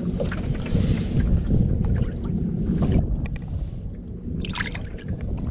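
Wind rumbling on the microphone over water sloshing as a redfish is let go from a small skiff. The rumble is heaviest for the first three seconds and eases after, with a short splash-like burst near the end.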